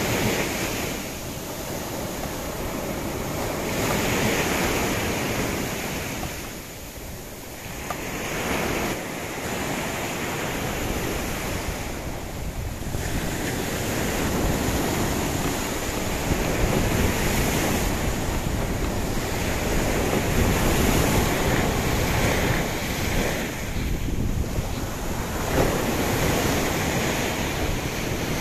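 High storm surf breaking and washing up a sandy beach, swelling and ebbing every few seconds, with wind buffeting the microphone.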